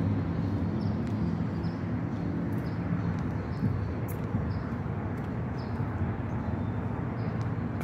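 Street ambience: a vehicle engine hums nearby and fades away about three and a half seconds in, over a steady wash of traffic noise, with faint high bird chirps now and then.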